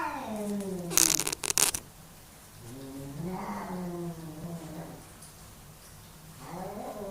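Male house cats yowling at each other in a fight: long, low, drawn-out yowls with a wavering pitch. One tails off at the start, another rises about three seconds in, and a third begins near the end. A short, harsh, noisy burst comes about a second in.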